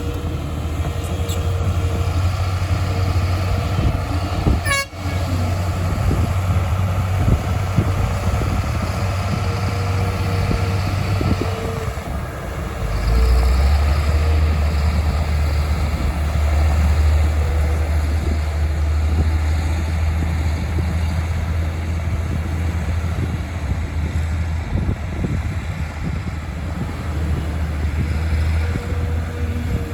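Heavy diesel engines of a Volvo EC300E excavator and dump trucks working, a steady low drone that grows louder and deeper about 13 seconds in as the engine takes more load. A brief sharp break comes about five seconds in, and a faint steady tone comes and goes over the drone.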